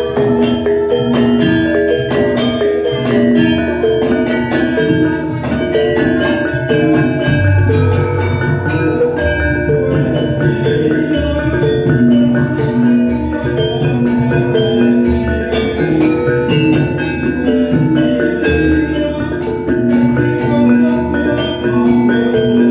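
Bonang gong-kettles struck with padded sticks in a quick, busy Sragenan-style pattern, ringing bronze tones played in a diatonic tuning. Deep low tones come in now and then beneath it.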